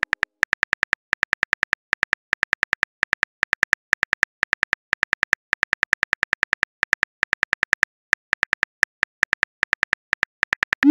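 Simulated phone-keyboard typing clicks: a fast, even run of identical light taps, about seven a second, broken by a few short pauses, as a text message is typed out character by character.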